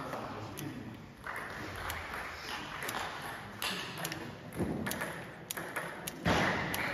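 Table tennis balls clicking at irregular intervals as they strike tables and bats, echoing in a large hall over a background murmur.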